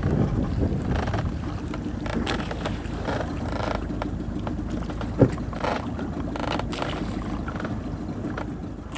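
Steady wind and water noise aboard a small fishing boat at sea, with a low rumble and short rushes of spray or water slapping the hull. A single sharp click comes about five seconds in.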